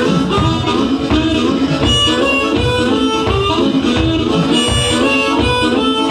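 Amplified blues harmonica played cupped tightly against a handheld bullet microphone, wailing held and bending notes over the band's steady rhythm.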